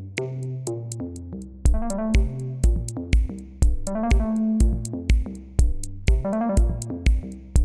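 Background music: an electronic track with a steady drum-machine beat and synthesizer notes.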